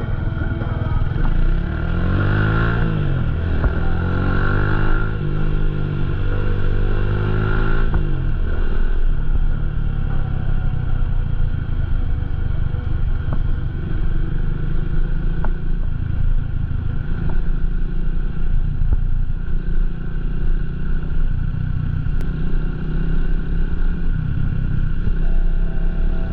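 Motorcycle engine running on the move. Its pitch rises and falls several times over the first eight seconds or so as it revs and changes gear, then it holds a steady cruising note.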